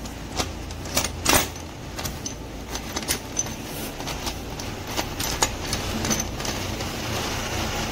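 Steel gears and gearbox shafts clinking against each other and the aluminium crankcase as they are fitted by hand into a Splendor Plus engine: a string of sharp metallic clicks, thickest about a second in, over a steady low background hum.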